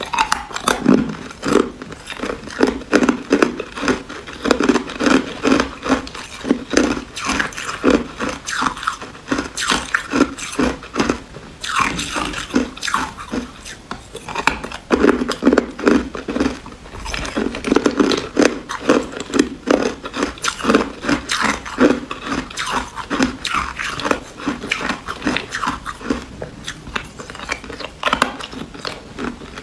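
Clear ice cubes being bitten and chewed: runs of sharp, crisp crunches, several a second, with brief pauses between mouthfuls.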